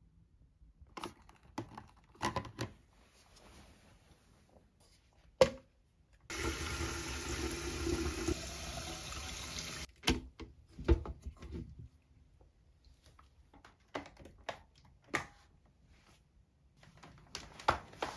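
Tap water pours steadily into a wet-dry vacuum's clean-water tank for about three and a half seconds. Before and after it come scattered plastic clicks and knocks from the tank and its lid being handled, with one sharp knock just before the water starts.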